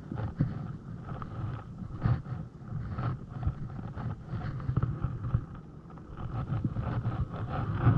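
Creek water running and splashing, with scattered irregular knocks and bumps close to the microphone.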